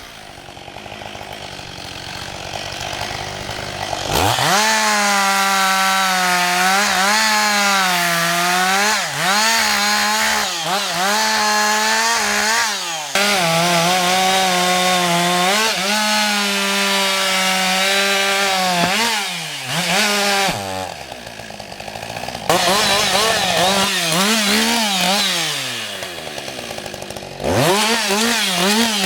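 Husqvarna 560 XP two-stroke chainsaw running at high revs through a run of cuts, its pitch sagging and recovering over and over as the chain works in the wood. It winds down toward idle at the start, opens up sharply about four seconds in, and drops back briefly a few more times.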